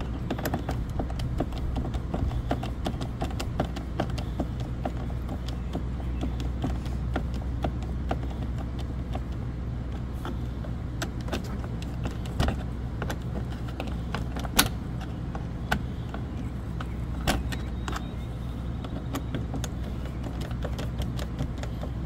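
Hand screwdriver driving the mounting screws of a camper door lock: many small clicks, scrapes and taps of metal and plastic, with a few sharper clicks in the second half, over a steady low hum.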